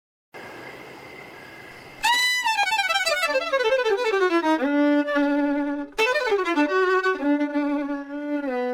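Solo violin playing a slow melody, coming in about two seconds in over a faint hiss. It plays held notes joined by long sliding glides, mostly downward.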